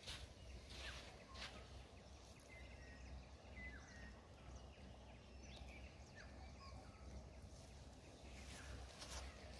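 Near silence: faint outdoor ambience with a low steady rumble, a few soft rustles and clicks as a nylon gill net is handled, and a few faint short bird chirps a few seconds in.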